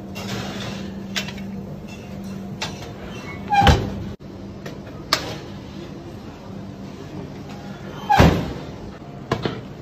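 Stainless-steel oven door of a gas range shutting twice with a heavy metal clunk, about a third of the way in and again near the end, with lighter knocks of a pan against the oven rack between them. A steady low hum runs underneath.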